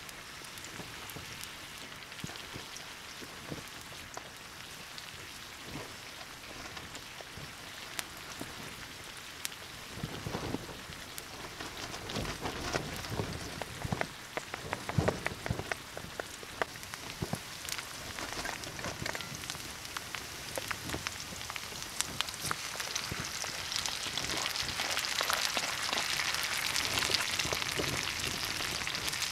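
Onions and sausage slices frying in oil in a camp pan, a steady sizzle with small crackling pops. Knife knocks come through around the middle. The sizzle grows louder near the end, once chopped tomato goes into the pan.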